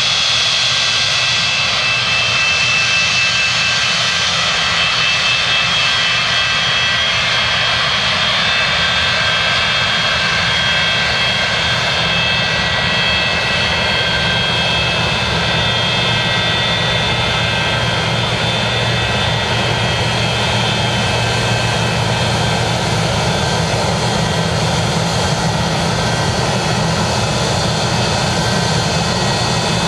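Early-model Boeing 737 with Pratt & Whitney JT8D turbofans running at low thrust as the jet taxis slowly along the runway: a steady, loud high-pitched whine of several tones over a low rumble.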